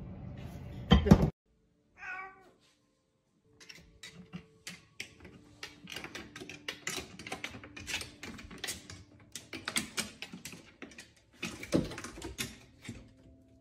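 A loud clatter about a second in, then a short cat meow, then a cat climbing a wooden wall ladder: a long run of quick taps and scrabbles of claws and paws on the wooden rungs, with a louder knock near the end.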